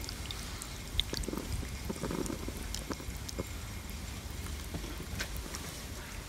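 A ladle stirring a thick cream stew in a black pot, scraping softly with scattered small clicks of the utensil against the pot, over a low rumble of wind on the microphone.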